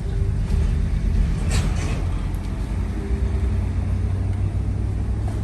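A motor running with a steady low drone, with a short clattering burst about a second and a half in.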